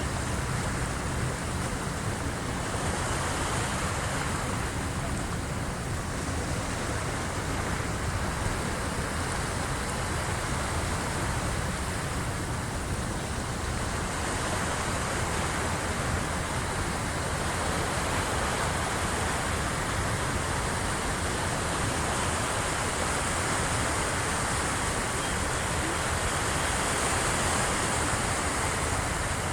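Sea waves of the incoming high tide washing against the shore: a steady rushing with slow swells every several seconds.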